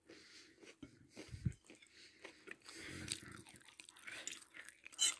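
Quiet eating sounds: chewing and biting close to the microphone, with a few soft clicks and a low thump.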